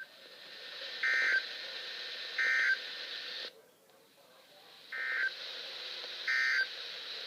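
Emergency Alert System end-of-message data bursts over radio hiss: three short, identical two-tone digital squawks about 1.3 s apart, a brief break, then another set of three. They mark the end of the severe thunderstorm warning message.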